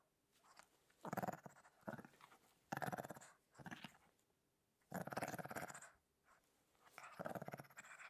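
A puppy growling in about six short, rough bouts with pauses between them, the longest lasting nearly a second about five seconds in.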